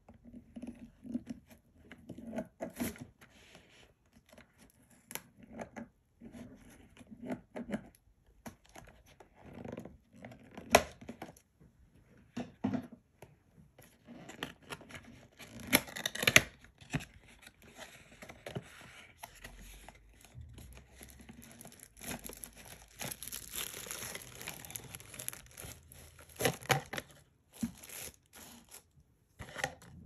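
Unboxing handling noise: scissors snipping and the box's seal tearing, followed by a small cardboard box being opened and plastic wrap crinkling. The sound is made up of irregular clicks and rustles, with a longer spell of crinkling past the middle.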